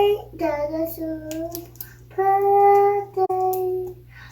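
A child singing, a few long held notes with short breaks between them.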